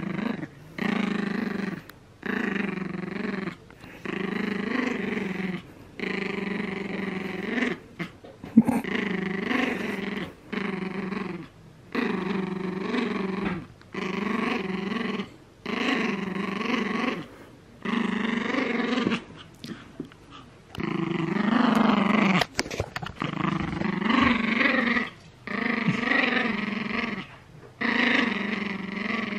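Small dog growling during a game of tug-of-war, a long series of rasping growls about a second each with short breaths between. One sharp knock comes about eight and a half seconds in.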